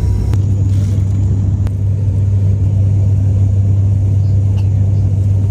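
Steady low drone of an airliner cabin in flight, heard from a passenger seat.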